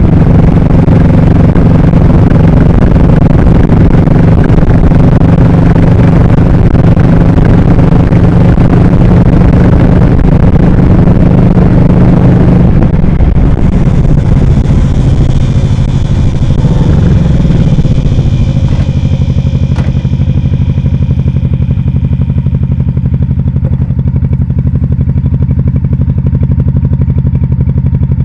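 1998 Honda Shadow VT1100T's 1100 cc V-twin engine running on the move, heard through a mic clipped behind the seat, with a strong rushing noise over it. About halfway through the rushing eases and the engine settles into a steadier, slightly quieter note.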